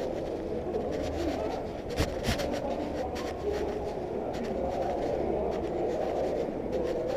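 Walking noise picked up by a hip-worn action camera: clothing rubbing against the camera and irregular footstep ticks, over a steady low rumble.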